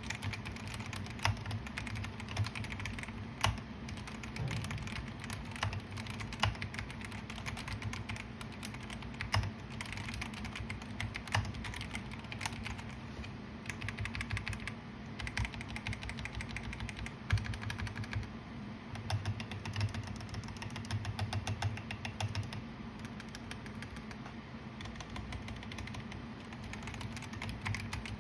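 Typing on a Vortexseries GT-8 mechanical keyboard with stock Outemu Brown tactile switches: a continuous, uneven run of key clicks and clacks, with occasional louder strokes.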